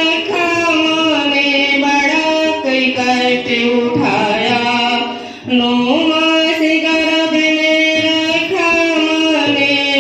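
A Hindi song sung in long held notes that step up and down in pitch, with a short break about five and a half seconds in.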